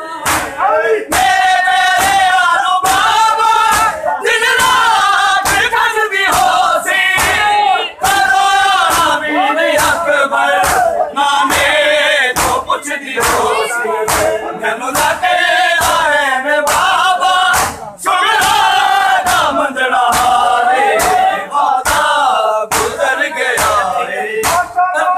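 Male voices chanting a noha (Shia mourning lament) to a steady beat, over the loud rhythmic slaps of a crowd of mourners beating their bare chests in matam.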